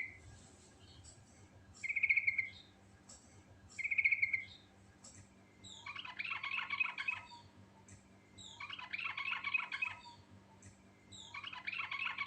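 Yellow-vented bulbul (trucukan) singing: three short bubbly phrases about two seconds apart, then three longer, busier chattering phrases.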